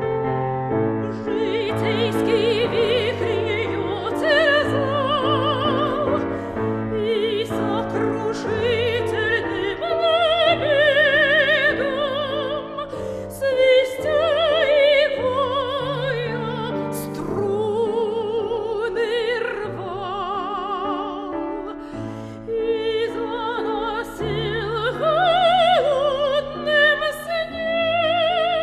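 Soprano singing a Russian romance in operatic style with wide vibrato, accompanied by piano.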